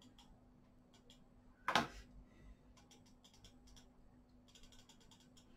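Faint clicks and light tapping, with one louder knock about two seconds in, over a steady low hum; small handling sounds at a painting desk.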